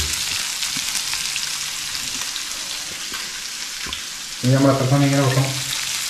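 Masala-coated sardines frying in coconut oil in a frying pan, a steady hiss of sizzling.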